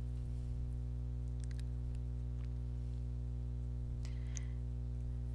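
A steady low hum, with a few faint light taps and a soft paper rustle about four seconds in as a paper frame is set in place over a card.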